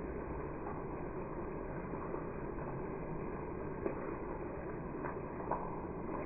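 Steady monsoon rain falling, an even hiss with a few sharper taps.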